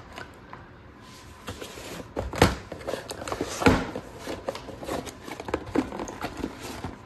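Cardboard boxes and plastic-wrapped parts being handled and moved about: rustling and light clicks, with two louder knocks, one about two and a half seconds in and one a little over a second later, as a box is set down on the workbench.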